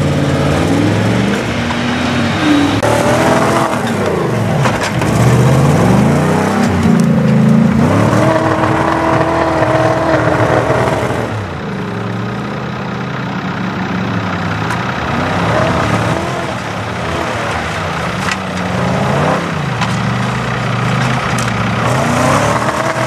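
Off-road 4x4's engine revving up and down repeatedly as it drives through loose sand, its pitch rising and falling with the throttle. It is held high for a few seconds around the middle, then drops.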